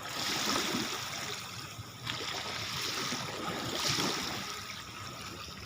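Water rushing and splashing against a speed boat's hull, surging in waves about every two seconds.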